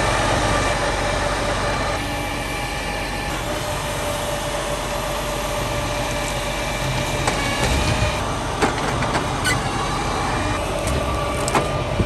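Log truck's engine and the hydraulics of its truck-mounted log loader running steadily with a constant whine while the grapple handles black cherry logs. Several short knocks and clunks in the second half as logs are set onto the truck bed.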